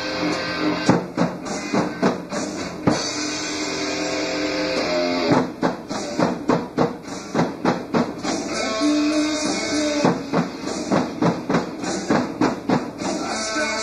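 Rock music: a demo recording of electric guitar, bass and drums played back, with a drum kit fitted with silencing pads played live over it, its hits still plainly audible. From about five seconds in the drum strikes stand out over thinner guitar, and the sustained guitar chords come back near nine seconds.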